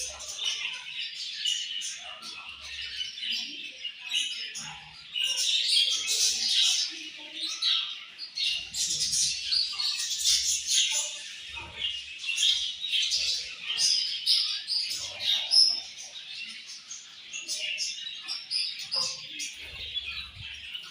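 A flock of budgerigars chirping and chattering continuously, many short overlapping calls at once, busiest and loudest in the middle stretch.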